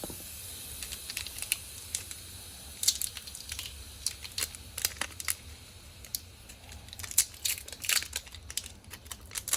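Crinkling and tearing as a sticky tire repair plug strip is peeled free from its packaging: a string of irregular sharp crackles, denser around the middle.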